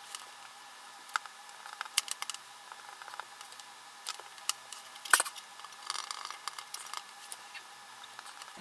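Scattered light clicks, taps and rustles of hand work at a soldering bench: a wire picked up and a soldering iron taken up and set to a small circuit board. The sharpest tap comes about five seconds in.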